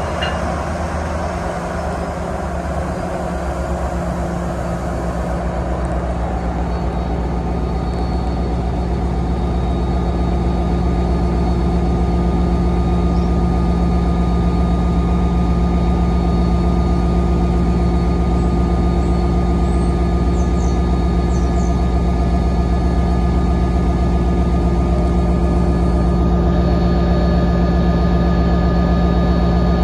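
NJ Transit Alstom PL42AC diesel-electric locomotive, with its EMD 710 prime mover, running steadily while standing still. It is a loud, low engine note with a few steady higher whines over it, and it grows slightly louder over the first ten seconds or so.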